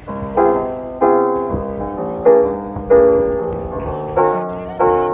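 Background music: a piano playing chords, each struck and left to fade, a new one about every half second to second.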